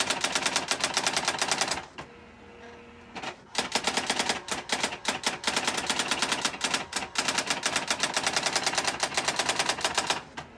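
Brother SX-4000 electronic daisywheel typewriter printing its self-demo on its own: a fast, even train of sharp strikes, with a pause of about a second and a half around two seconds in before the typing resumes.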